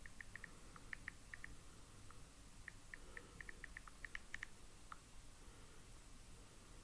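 Faint typing: about twenty light key clicks in quick irregular runs, as someone types in a search.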